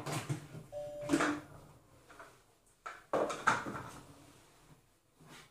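Plastic lid being twisted off a Monsieur Cuisine Connect food processor's stainless steel mixing bowl and handled, giving several clunks and knocks with a brief squeak about a second in; the loudest clatter comes about three seconds in.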